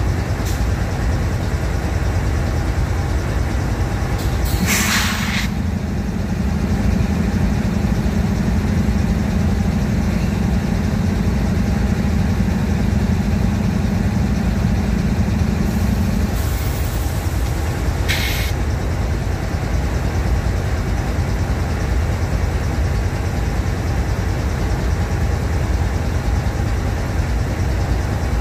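Diesel locomotive idling with a steady low rumble. Short hisses of air are released from its air brake system, one about five seconds in and two more about sixteen to eighteen seconds in, typical of the locomotive's brakes being set. A steady hum runs between the first and second hisses.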